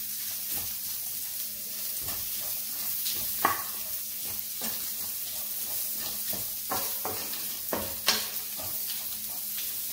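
Shallots, dried red chillies and curry leaves sizzling in hot oil in a pan while a spatula stirs them, with scattered scrapes of the spatula on the pan. The sharpest scrapes come about three and a half and eight seconds in. The onions are being fried until they wilt.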